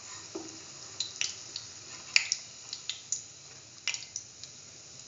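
Split chickpea fritters frying in hot oil: a steady sizzle with scattered sharp pops and crackles.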